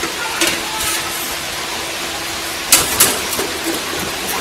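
A few sharp metallic clicks and knocks from handling parts on a stainless-steel frame, the loudest two close together about three seconds in, over a steady hiss of workshop background noise.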